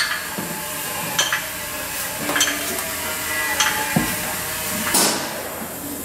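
Scattered metallic clinks and knocks, about six over a few seconds, some with a short ring, as a hoist chain and a replacement engine are guided down onto their mounts in the engine bay.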